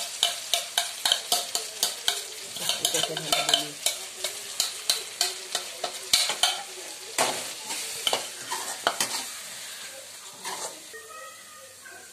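Perforated metal spoon scraping and clinking against a metal kadhai about two to three times a second as capsicum, onion and tomato are stirred, over a steady frying sizzle of the vegetables in oil with sauce just added. The stirring thins out after about nine seconds, leaving the sizzle.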